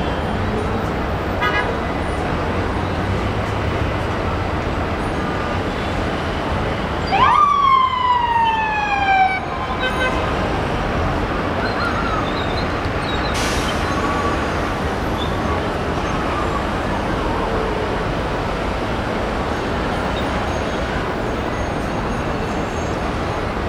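Steady traffic noise from a congested intersection of cars and buses. About seven seconds in, one loud siren whoop rises quickly and slides down over about two seconds.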